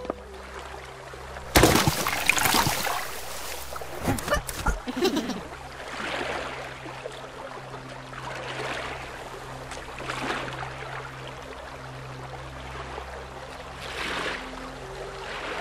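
Water sound effects of a small rowboat: a loud splash about one and a half seconds in, more splashing and knocks over the next few seconds, then repeated swishes of oars pulling through the water.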